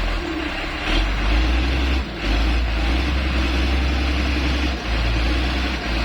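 Motor grader's diesel engine running under load while the machine works to free itself from soft ground. A heavy low rumble drops out briefly a few times.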